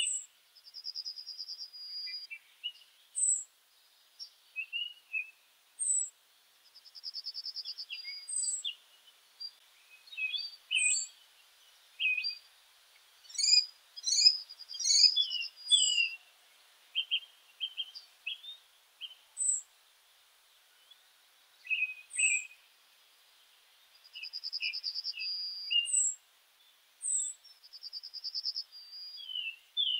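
Small birds chirping and singing: scattered short high chirps with now and then a rapid, buzzy trill lasting about a second.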